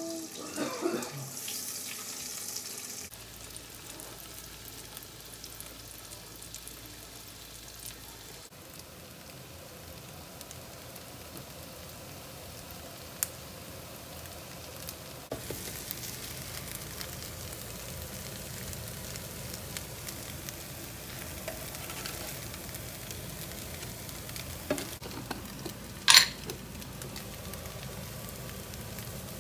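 Potato-quark patties (Quarkkeulchen) sizzling steadily as they fry in fat in a frying pan. A few short knocks sound over the sizzle, the loudest and sharpest near the end.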